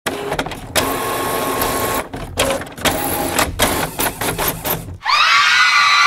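A loud, noisy, machine-like clatter that starts and stops in uneven chunks, then cuts off about five seconds in as music begins.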